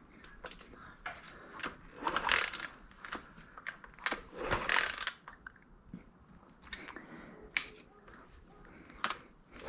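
Scattered light clicks and scrapes of hands and tools working on a pit bike's spark plug and ignition, with two louder scraping rustles about two and four and a half seconds in.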